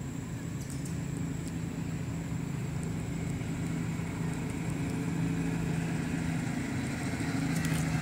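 Steady low hum of a motor vehicle's engine running, with a few faint clicks.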